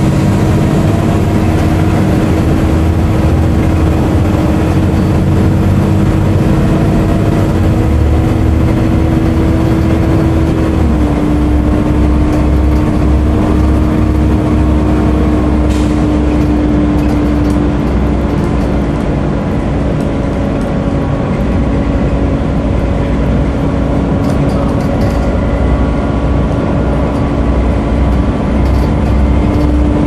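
Volvo B7TL double-decker bus heard from inside while driving: the engine cooling fan's steady vacuum-cleaner-like whine, the "hoover", over the diesel engine's low rumble and road noise. The whine drops slightly in pitch about a third of the way in and again past halfway, rising a little near the end.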